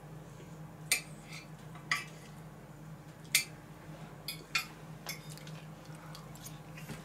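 Cutlery clinking against a plate as food is cut and picked up with a fork: about six sharp clicks a second or so apart, the loudest about a second in and near the middle, over a faint steady hum.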